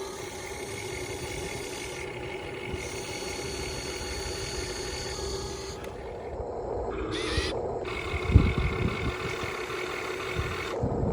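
Radio-controlled hydraulic excavator running: a steady motor and pump whine, with knocks, the loudest about eight seconds in.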